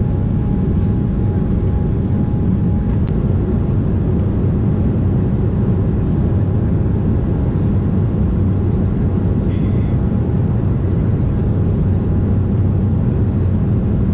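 Steady cabin drone of an Embraer E190 jet airliner, from its GE CF34 turbofan engines and airflow, with a thin steady whine running through it.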